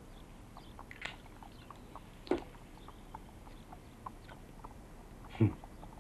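Pen writing on paper at a wooden table: faint scattered scratches and ticks, with three short louder knocks about one, two and a half, and five and a half seconds in.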